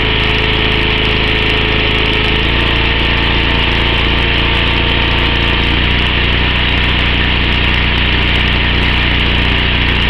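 Small petrol engine of a hydraulic breaker pack running steadily, powering a hand-held hydraulic motor that is screwing a ground screw down through rail ballast. The engine note shifts slightly about two seconds in.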